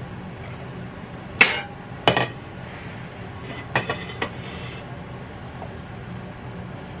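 Dishes and cutlery set down on a countertop: a bowl and a metal fork clink and knock in four short, sharp sounds, the loudest about a second and a half in and the last two close together near four seconds.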